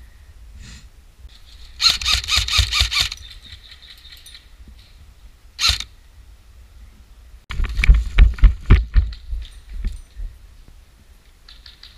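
Airsoft gun fired in a quick burst of about seven shots, then a single shot a few seconds later, followed by a run of irregular close knocks and thumps.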